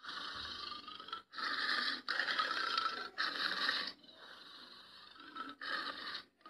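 Tiger growling: a run of harsh, rasping snarls about a second each with short breaks between them, quieter for a moment past the middle.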